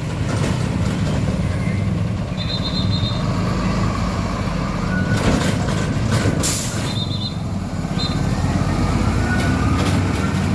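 Heavy diesel truck engine running with a low, steady rumble. There is a sharp air-brake hiss a little past halfway, and short spells of rapid high-pitched beeping early on and twice more after the hiss.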